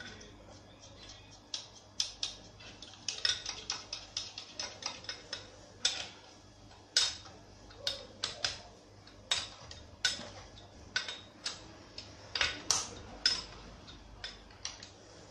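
Hand ratchet wrench clicking in short runs, with sharp metal clinks of the socket and tools on the crankshaft main bearing cap bolts as they are tightened. There is a fast run of clicks about three to five seconds in.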